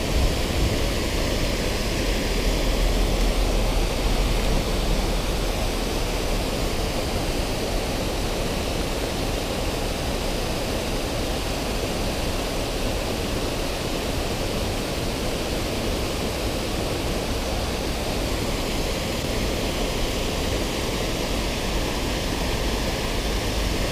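Steady rushing of river water pouring over a low concrete weir, a constant even roar with no breaks.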